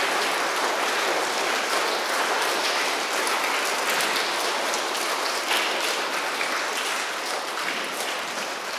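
A congregation applauding steadily, the clapping slowly thinning toward the end.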